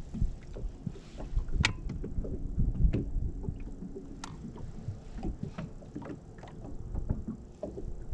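Water slapping against a small fishing boat's hull with a low, uneven rumble, and scattered light clicks and knocks from gear on board.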